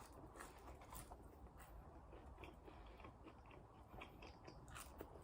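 Faint chewing of McDonald's french fries, with soft, irregular crunches.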